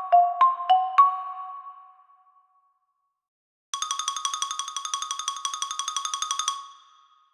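Tuned mallet percussion played by hand. A short phrase of struck notes rings out and fades within about two seconds. After a pause, a fast roll of about a dozen strikes a second on two close notes runs for nearly three seconds, then rings away.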